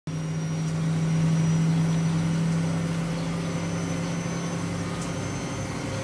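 A steady low mechanical hum, like a motor running, with a few fainter tones above it. It is a little louder in the first two or three seconds.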